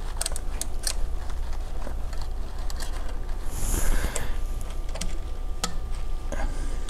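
Small metal clicks and taps of a thin screwdriver working governor springs and shims out of the governor housing of a 12-valve Cummins P-pump injection pump. There are several clicks in the first second and one more later, a short rustle about four seconds in, and a steady low hum underneath.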